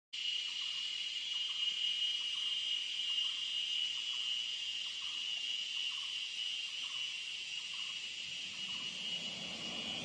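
Jungle insects in a dense chorus: a steady, shrill high-pitched drone.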